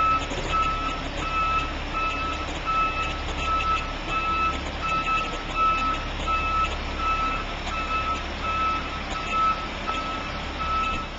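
Backup alarm of a military 6x6 cargo truck beeping about twice a second, over the low, steady running of the truck's engine as it reverses.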